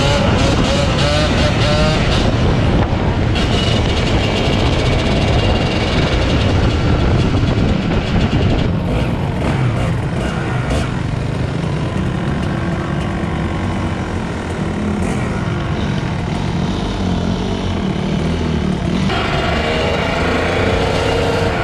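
Dirt bike engines running on the move: a loud, unbroken engine drone.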